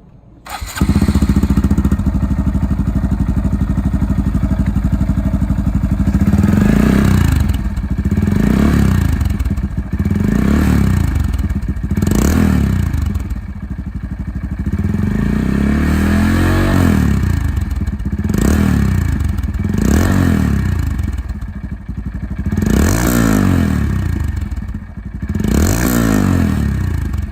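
Honda Monkey 125's single-cylinder four-stroke engine through a Yoshimura GP Magnum Cyclone up-type exhaust. It comes in sharply about half a second in and idles, then from about six seconds on it is revved in about nine short throttle blips, each rising and falling in pitch.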